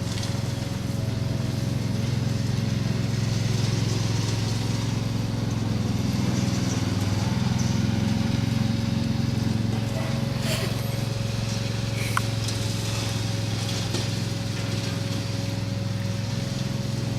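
Lawn mower engine running steadily, a constant drone with a few faint clicks about two thirds of the way through.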